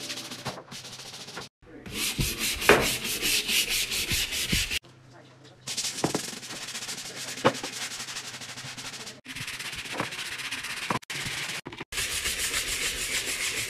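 Stiff-bristled scrub brush scrubbing wet floor tile and grout: a quick rhythmic rasp of bristles on tile, in several stretches broken by short gaps.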